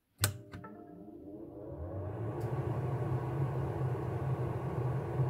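Two switch clicks, then an extractor fan motor spinning up with a rising whine and settling into a steady hum. Switching it on is what knocks the laser engraver off its connection, which the owner suspects is because the laser is not grounded.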